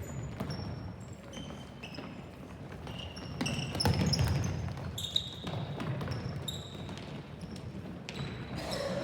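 Game sounds on an indoor court: a ball thumping on the floor and many short, high squeaks of shoes on the floor, over a low hall rumble.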